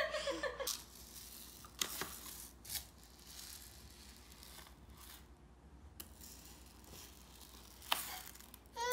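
Faint rustling and pattering of dry coloured rice being scooped and stirred by hand in a plastic sensory tray, with a few louder short sweeps about two seconds in and near the end. A toddler's voice is heard briefly at the very start.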